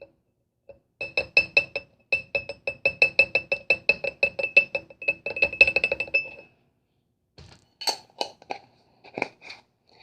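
Rapid, even clinking of a utensil striking a hard container, about five or six ringing strikes a second for some five seconds, followed by a few scattered clicks.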